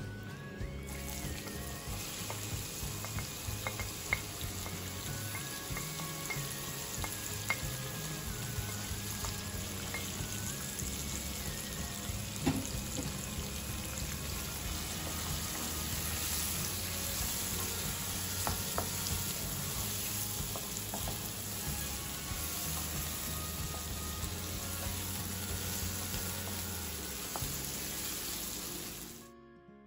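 Chopped onions sizzling as they fry in hot butter ghee in a wok, stirred with a wooden spoon that knocks against the pan a few times. The sizzle cuts off suddenly near the end.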